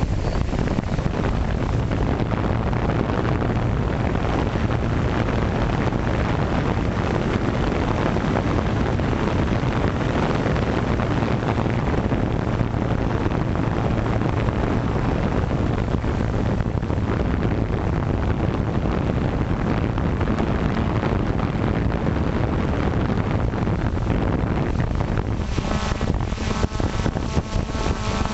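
An FPV drone's electric motors and propellers running steadily, heard through its onboard camera as a loud hum mixed with wind buffeting the microphone. Near the end a whine of several tones comes up over the noise.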